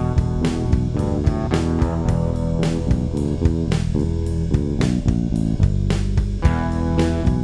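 Background music: guitar and bass guitar over a steady beat.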